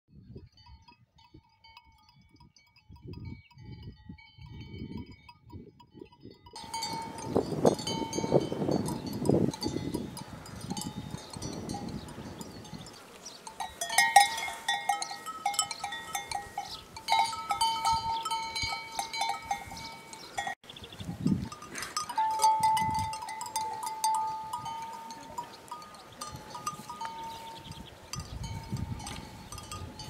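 Livestock bells on grazing cattle clinking and clanking irregularly. They are faint at first and louder from about six seconds in. A low rumble comes a few seconds later.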